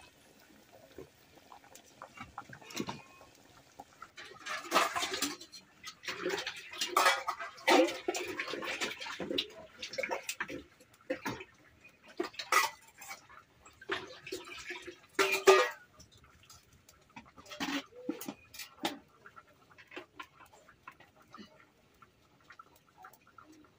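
Water splashing and sloshing in a plastic bucket as it is scooped out with a steel bowl, with metal clinks. A busy run of splashes and knocks lasts about twelve seconds, then only scattered small knocks remain.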